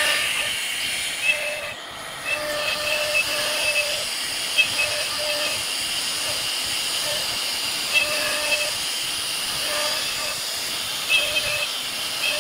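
CNC router spindle running at high speed while a small carving bit cuts a scroll pattern into a wooden door panel: a steady high hiss with a whining tone that comes and goes as the bit cuts, and a few short sharp clicks.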